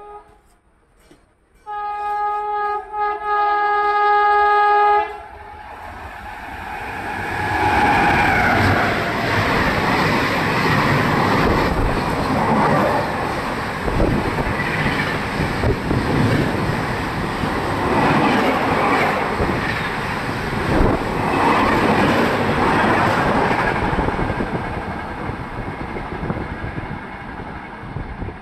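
WAP-7 electric locomotive sounds its horn for about three seconds, with brief breaks. The New Delhi–Sealdah Rajdhani Express it hauls then passes through at speed, wheels clattering over rail joints. The sound fades near the end as the train recedes.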